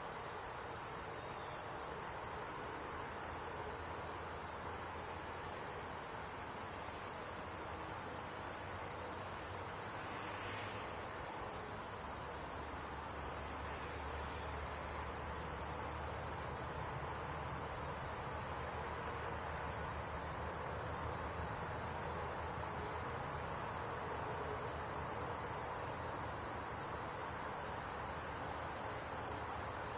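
Late-summer insect chorus of crickets, a steady, unbroken high-pitched trilling drone.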